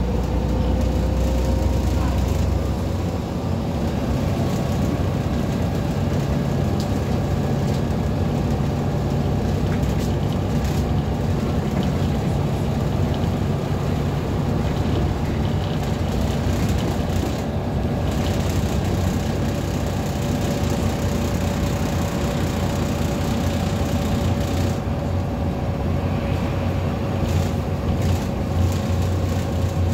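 Solaris Urbino 15 III city bus heard from inside the passenger cabin while driving. The engine runs steadily under a constant whine from the drivetrain, which rises slightly in pitch in the first few seconds and then holds steady.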